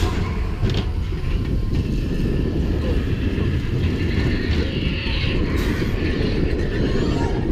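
Slinky Dog Dash, a Mack Rides steel roller coaster, heard from on board the train as it runs along the track: a steady low rumble of wheels on rail, with a few light clacks.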